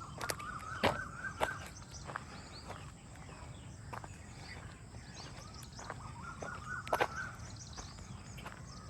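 Birds chirping and calling in the background, with a longer call heard twice about six seconds apart, and footsteps on a walking path giving sharp clicks, loudest about a second in and near the end.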